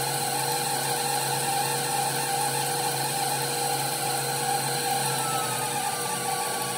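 Electric stand mixer running steadily with its whisk beating egg whites into meringue while sugar is added. A faint whine in the motor sound slides slightly lower about five seconds in.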